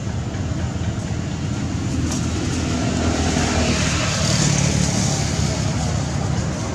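Steady low rumble of road traffic, with a vehicle passing and swelling about four to five seconds in.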